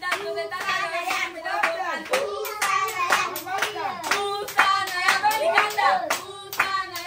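Several children's high voices talking and calling over one another, with sharp claps scattered through at about three a second.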